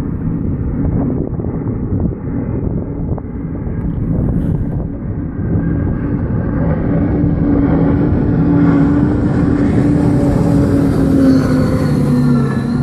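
Nor-Tech 36 powerboat's outboard engines running at speed, growing steadily louder as the boat approaches, their pitch dipping slightly near the end as it passes.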